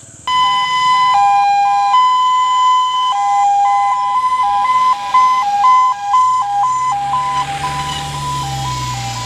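An ambulance's electronic siren comes on suddenly just after the start. It switches back and forth between two pitches in an uneven, tune-like pattern. Near the end a vehicle engine rumbles louder underneath it.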